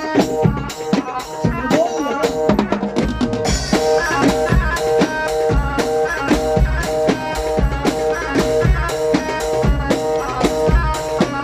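Instrumental break of an Egyptian popular song: a drum kit plays a steady beat of kick drum and rimshots under a melody line, with no singing.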